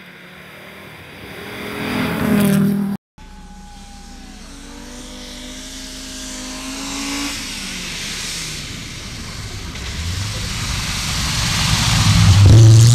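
Audi rally car's engine revving hard as it approaches on a snow stage, growing louder. The sound cuts off suddenly about three seconds in, then a second approach builds up to its loudest near the end, its pitch dropping briefly about seven seconds in.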